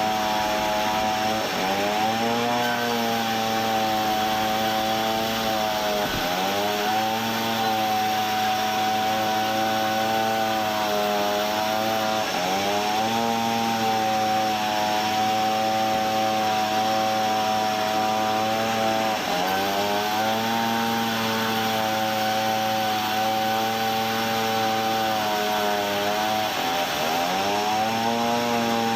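Engine-driven sawmill saw running steadily. Its note dips sharply in pitch and climbs back five times, about every six seconds, as the saw takes load in the wood.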